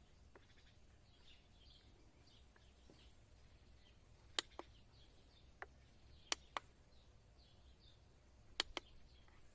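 Quiet outdoor background with faint bird chirps, broken by a few sharp clicks, several of them in close pairs.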